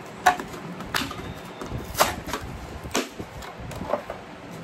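Cardboard and plastic toy packaging being handled and pulled apart: a handful of sharp clicks and crackles, roughly a second apart.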